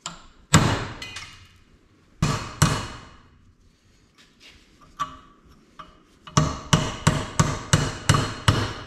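Hammer blows on a cold chisel against a partly cut-through clinch ring on a Dana 44 rear axle shaft, to crack the ring off. A few separate sharp metal strikes come first, then a quick run of about eight blows near the end, some three a second.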